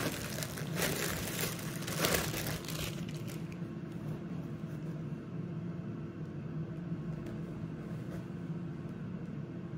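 Clear plastic packaging bag crinkling and rustling as clothes are pulled out of it, for the first three seconds or so. A steady low hum follows.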